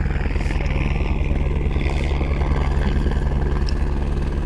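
Helicopter running steadily: a fast, even rotor beat under a constant engine hum.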